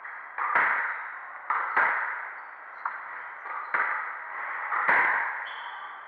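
Squash rally: the ball struck by rackets and slapping off the court walls about five times, roughly a second apart, each hit ringing briefly in the enclosed court.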